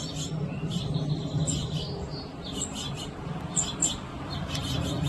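Small sparrow giving short, high chirps every second or so, over a steady low hum.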